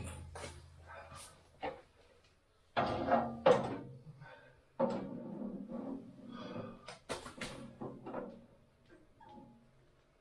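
A series of irregular knocks and clunks, like objects being handled and set down, with the loudest thumps about three seconds in, near five seconds, and a pair around seven seconds.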